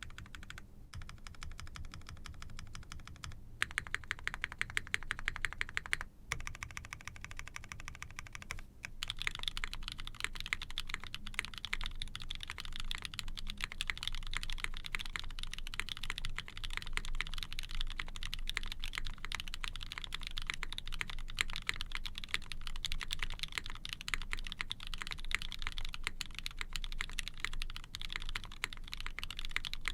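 Mechanical keyboard being typed on: an Ori-Club CLS-2 with a POM plate, GMK keycaps and diamond-polished, Krytox 205g0-lubed Tofu linear switches. Evenly spaced keystrokes in short runs with brief pauses, then continuous fast typing from about nine seconds in.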